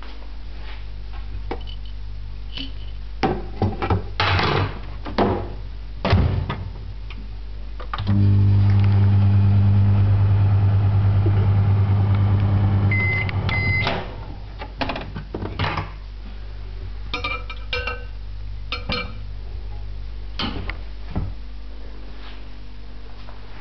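Microwave oven running with a steady hum for about five seconds, then two short beeps. Scattered clicks and knocks come before and after.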